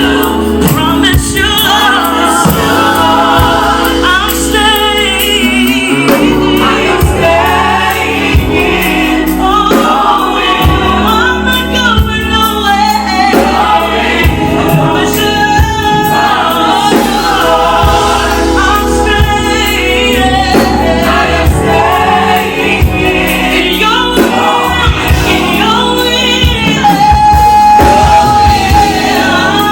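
Live gospel music: a choir and singers with a band, a steady beat underneath.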